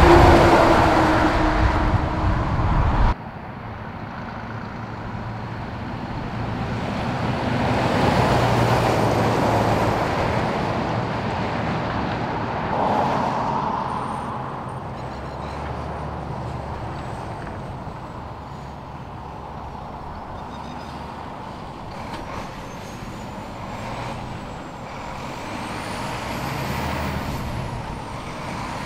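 Heavy diesel trucks driving past on the road. A Volvo livestock truck goes by close and loud for the first three seconds and cuts off suddenly. After that, logging trucks' engines and tyres pass at a lower level, swelling and fading as each one goes by.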